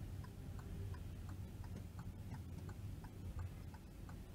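Car's turn-signal indicator ticking steadily, about three clicks a second, for a left turn, over the low hum of the engine in the cabin.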